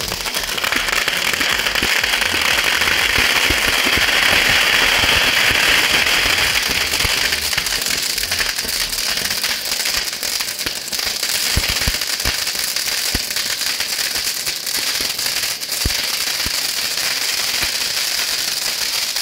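King Star ground fountain firework spraying sparks with a loud steady hiss. After about seven seconds the hiss thins and dense crackling takes over, a fast string of small pops that runs on.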